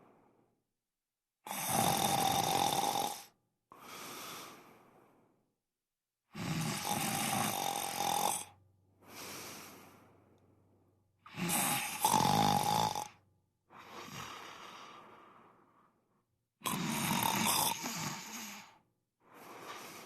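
A person snoring: four loud snores about five seconds apart, each followed by a quieter, fading breath out.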